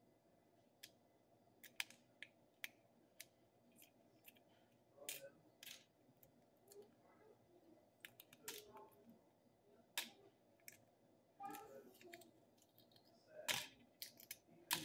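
Eggshell being picked and peeled off a dyed hard-boiled egg by fingers: small sharp cracks and clicks at irregular intervals, with a couple of louder cracks near the end.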